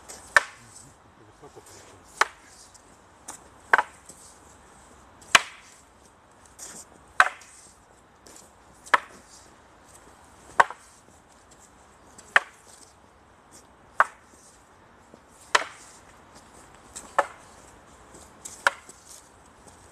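Two wooden fighting staffs clacking together in a paired staff drill: a sharp wooden knock about every second and a half to two seconds, about twelve strikes in a steady rhythm.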